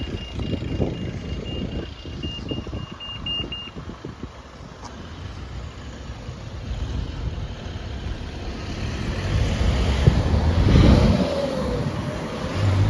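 Pelican crossing's pedestrian signal bleeping in a fast, even, high-pitched pulse while the green man shows, stopping about four seconds in. Wind buffets the microphone during the bleeping. Then road traffic moves, with a car passing loudest near the end.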